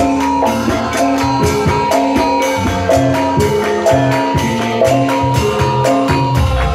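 Javanese gamelan ensemble playing: a melody of struck, ringing pitched notes over low drum strokes and a dense, regular beat of high percussion.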